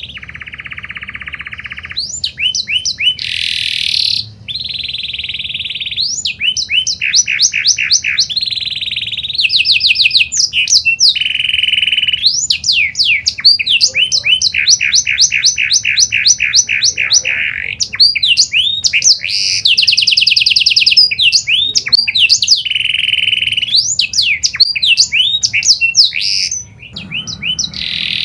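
Domestic canary in full song: a long, unbroken run of fast trills and rolls of repeated notes, switching to a new phrase every second or two.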